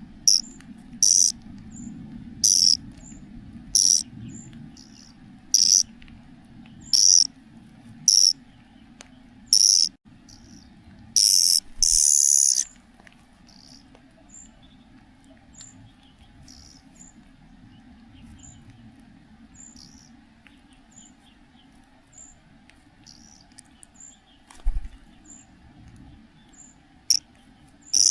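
Young cuckoo giving loud, high-pitched begging calls, a short call about every second and a half, then one longer call near the middle. Fainter chirps carry on after that, with a dull thump and two more calls near the end.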